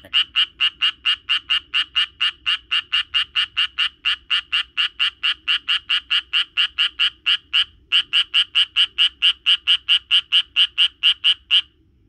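Japanese tree frog calling: a fast, even run of short, high notes, about five a second. There is a brief break about two-thirds of the way through, and the calling stops just before the end.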